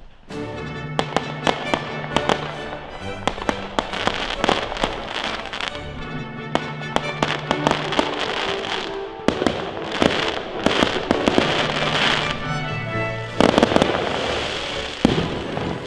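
Aerial fireworks bursting and crackling, many sharp bangs in quick succession, over music with long held notes. The bangs come thickest in the second half.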